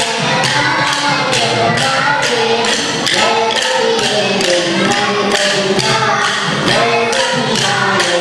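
Kolattam dance sticks clacked together in a steady rhythm of sharp clicks, about two or three a second, over a sung song.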